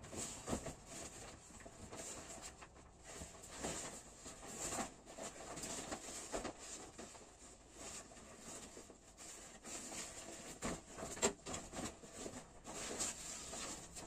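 Rustling and crinkling of a large plastic sack and a fabric blanket being handled, lifted and shaken out, with irregular soft knocks and a few sharper ones.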